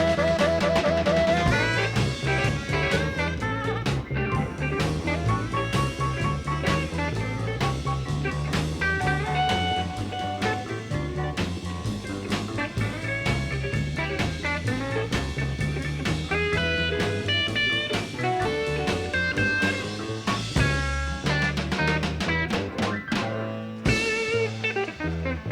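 Live electric blues band playing an instrumental stretch of a slow blues: lead guitar lines over a walking bass and drum kit. It builds to a closing flourish near the end and begins to ring out.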